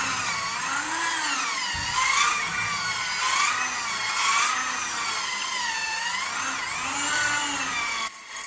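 Corded electric drill boring into a plastered wall, its whine rising and falling in pitch about once a second as the load on the bit changes, then stopping about 8 seconds in.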